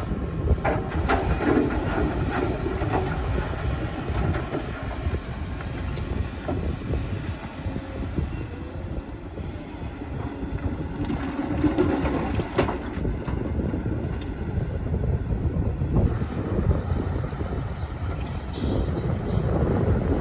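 Excavator's diesel engine running under load while the machine digs rock out of the ground, with occasional sharp knocks of steel on stone.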